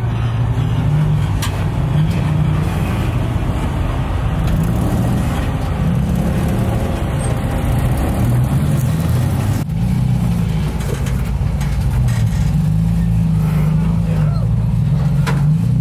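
Toyota Tacoma V6 rock crawler's engine running at low revs under load, its pitch rising and falling as the truck crawls over boulders. There is a brief dip about ten seconds in.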